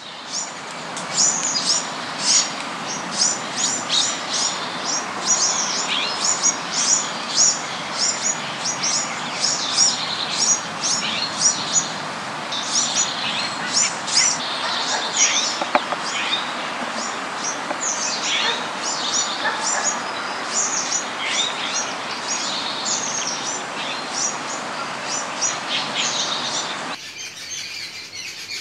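Many birds chirping in rapid, high, overlapping calls over a steady background noise. The background noise drops away sharply near the end, while the chirping goes on.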